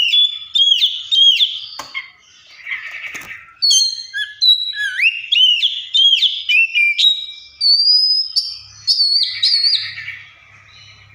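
Oriental magpie-robin singing a loud, varied song of rapid slurred whistles rising and falling in pitch, broken twice by a harsh, raspy chatter.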